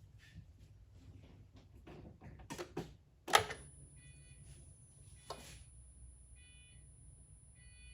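Clicks and handling noises, then a sharp knock a little over three seconds in, after which the 2006 Pontiac GTO's dash warning chime starts ringing at about one chime every 1.2 seconds with the ignition key turned on.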